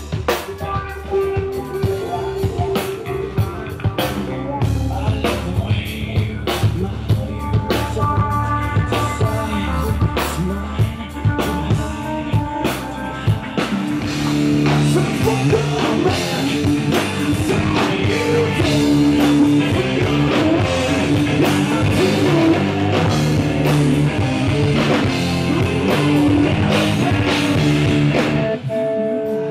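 Rock band playing live: drum kit, bass, electric guitar through Marshall amplifiers, and a singer. The band grows fuller and louder about halfway through.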